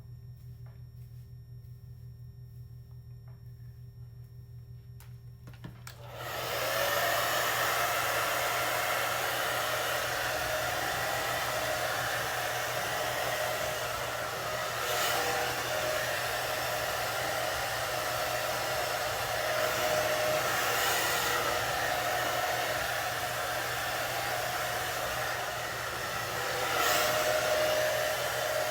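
Handheld hair dryer switched on about six seconds in, then blowing steadily with slight shifts in pitch. Before it starts there is only a faint hum and a few soft clicks.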